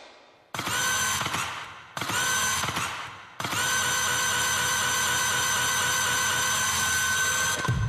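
Electric-motor whirring sound effect in a robot-dance soundtrack, like a power drill spinning up: two short bursts, then one long steady whine of about four seconds. Each burst starts with a slight rise in pitch.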